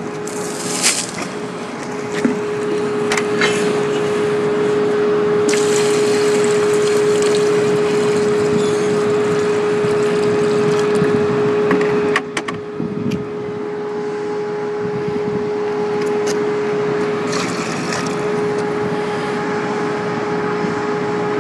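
Water poured from a plastic bucket into a plastic measuring pitcher: a steady splashing pour that starts about five seconds in and stops abruptly about twelve seconds in. A steady hum runs underneath.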